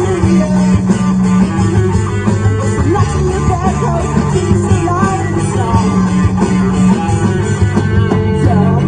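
Rock band playing live, led by electric guitars with bass guitar underneath.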